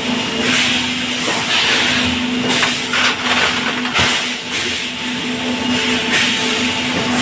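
Bottling-line machinery running: a steady mechanical hum with hissing surges that come and go every second or two, and scattered clicks and knocks, one sharp knock about four seconds in.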